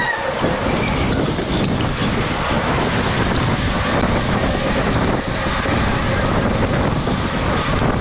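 Steady wind rush on an action camera's microphone while riding a mountain bike at speed in a pack of riders, mixed with the bike's rolling noise.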